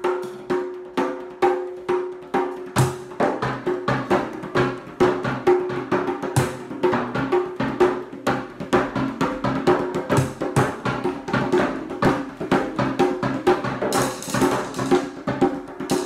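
Two people playing percussion together: drums struck with hands and mallets in a steady rhythm, with a ringing drum tone under the strokes. The beat gets faster and busier after about three seconds.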